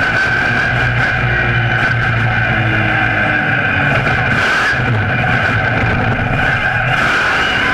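Monster truck engine running loud and steady through a freestyle run, heard from a camera mounted on the truck's side.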